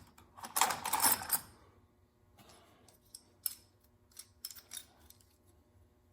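Small metal clinks and clicks of a sheet-metal panel clamp being handled and set into a patch panel seam. There is a scraping rustle about half a second to a second and a half in, then a few separate sharp clicks.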